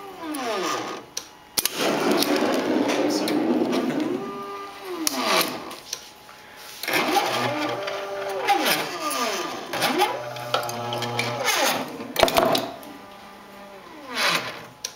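Motor-driven lead screws of a robot gantry running, a whine that rises in pitch, holds and falls again as each move speeds up and slows down. There are about five moves in a row, with a few clicks between them.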